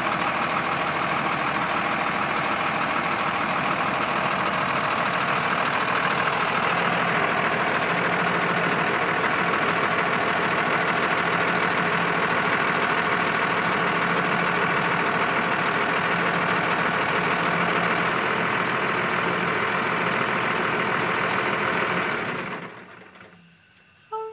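School bus engine idling steadily, then shut off about 22 seconds in, dying away within about a second. It is being stopped by hand at the engine because its shut-off cable has broken.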